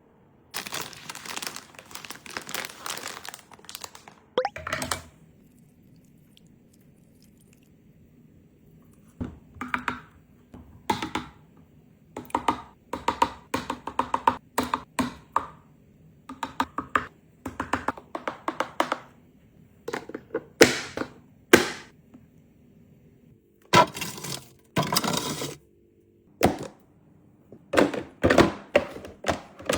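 Handling noises: an irregular series of knocks and crackling rustles, with a quiet pause from about five to nine seconds in.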